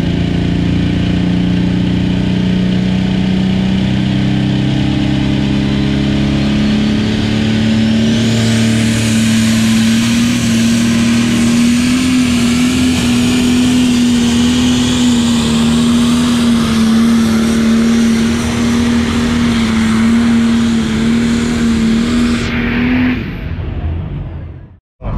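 Engine of a pulling vehicle at a tractor pull, running hard under load during a pull: a loud, steady note that climbs slowly over the first ten seconds, then holds with a slight waver. It falls away about 23 seconds in.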